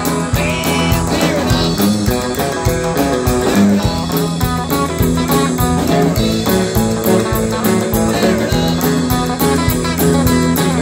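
Live band playing, with guitar to the fore over a steady beat.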